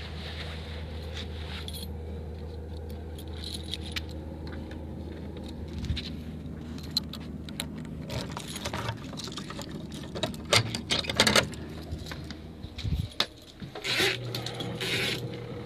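Steady low machine hum with light metallic clicks and rattles over it, loudest and thickest about eight to eleven seconds in, and a brief rustle near the end.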